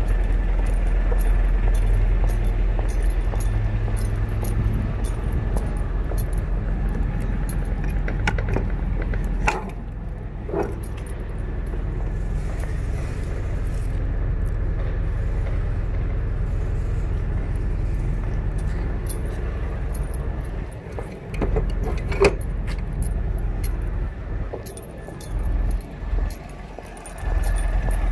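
Volkswagen L80 truck's diesel engine idling with a steady low rumble, with many small clicks throughout and a few sharp knocks about ten seconds in and again about twenty-two seconds in.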